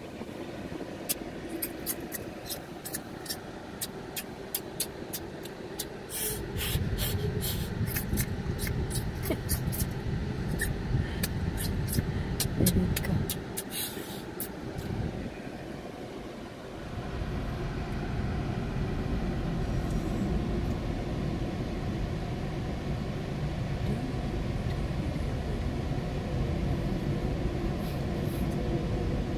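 Freight train cars rolling past a grade crossing: a steady low rumble that grows louder about six seconds in and dips briefly partway through. A run of sharp clacks sounds during the first half.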